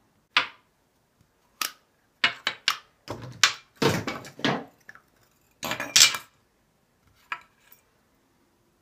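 Objects being handled in a ceramic sink: a series of sharp knocks and clatters with short gaps between them, busiest in the middle and loudest about six seconds in.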